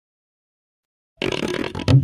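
Dead silence for just over a second, then a comedy sound-effect clip cuts in abruptly with a rough, noisy sound and the first of a run of drum strokes.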